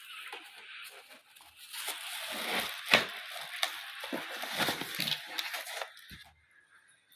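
Packaging crinkling and tearing as it is handled and opened by hand, with sharp clicks and snaps; it dies down about six seconds in.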